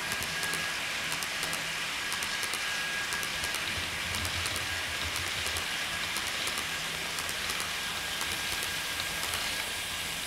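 N scale model passenger train running on the layout's track: a steady hiss of small metal wheels rolling on rail, with light irregular clicking over the rail joints.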